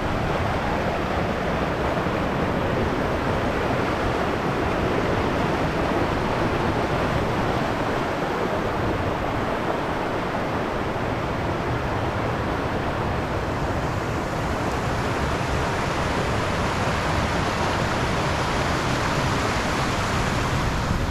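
Steady rushing of a fast mountain river's water running over rocks, a continuous hiss that grows a little brighter near the end.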